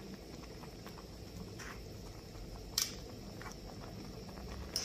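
Pot of soup cooking on a camp stove, with faint irregular pops of bubbling over a low steady hum. Two sharper clicks come past halfway and near the end.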